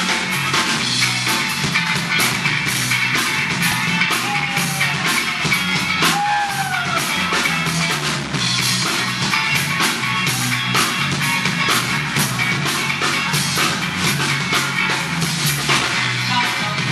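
Live band playing an upbeat rock song, instrumental with no vocals: a drum kit with busy cymbal strokes, electric guitar and a steady bass line.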